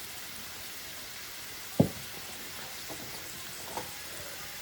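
Food sizzling steadily in a hot pan while yakisoba is being fried, with one sharp knock about two seconds in and a couple of fainter knocks later.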